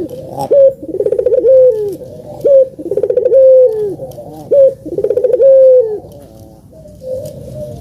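A puter (ringneck dove) cooing three times, about two seconds apart. Each coo is a short upward note, a rolling trill and a long held note that drops at the end.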